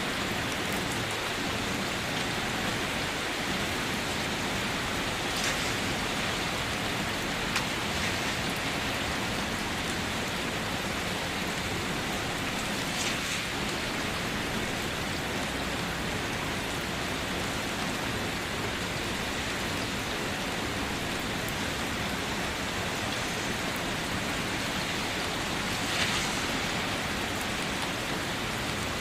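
Steady rain drumming on a car's roof and body, heard from inside the car, with now and then a single louder drop striking, most plainly near the end.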